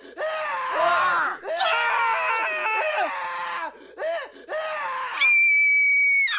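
Screaming from female and male voices: a run of short screams and wails bending up and down in pitch, then, about five seconds in, one long, very high-pitched shriek held steady before it drops away.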